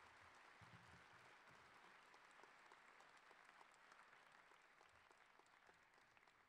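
Very faint audience applause, a patter of many hands clapping, dying away by about six seconds in.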